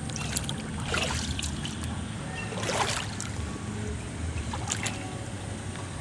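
Floodwater splashing in two louder rushes, about a second in and near the middle, with a smaller one near the end, over a steady low rumble.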